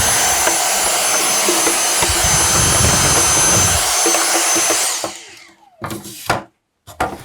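Dyson vacuum cleaner running with a steady high-pitched whine as it sucks dust out of a vacuum's opened housing, switched off about five seconds in. A few short knocks follow.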